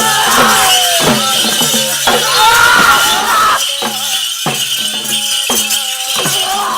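Folk ritual music: regular drum strokes, about two a second in the second half, with a jingling rattle and a voice singing in gliding lines in the first half.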